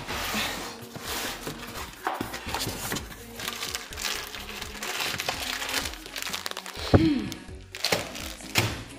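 Plastic spaghetti packets crinkling and rustling as they are handled and pulled from a cardboard carton, with a loud thump about seven seconds in. Background music plays under it.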